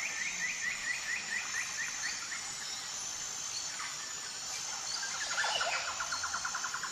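Forest ambience of birds chirping over a steady background hiss. First comes a run of quick, high repeated chirps; from about five seconds in, a faster, lower trill takes over.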